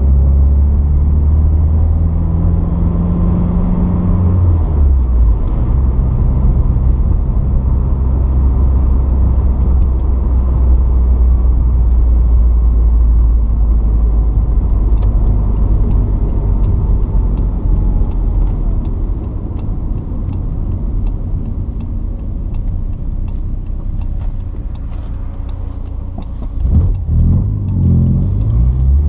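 Porsche 944's 2.5-litre four-cylinder engine running on the move as a steady low drone, its pitch shifting a few seconds in. It quietens in the second half, then rises and falls in pitch near the end as it revs again.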